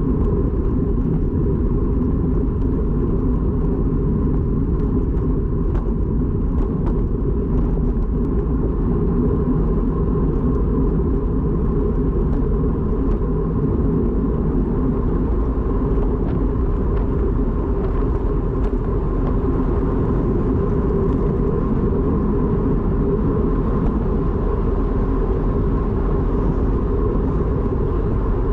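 Steady wind rush and road rumble on a moving camera's microphone, with a faint steady whine and occasional light ticks.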